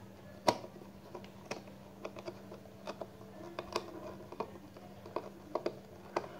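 Small Phillips screwdriver working a screw out of the circuit board inside a DJI Phantom remote controller: irregular light clicks and taps of metal on metal and plastic, the loudest about half a second in, over a faint steady hum.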